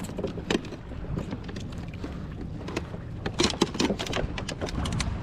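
Kayak on the water with a steady low rumble of wind and water, broken by a few sharp clicks and knocks, most of them bunched about three and a half seconds in.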